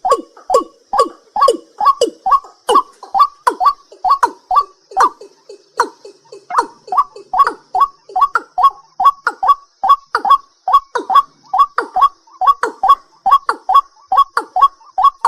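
A night bird calling in a rapid run of short, knocking notes, each dropping in pitch, about three a second. A faint steady high insect buzz sits underneath.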